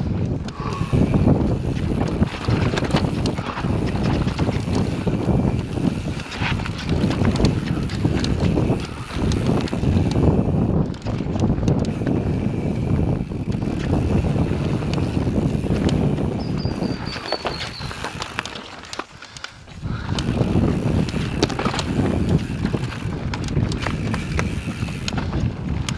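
Mountain bike riding a dirt singletrack: tyres rumbling over the ground while the bike rattles and clatters over bumps and roots. There is a brief quieter spell about three-quarters of the way through.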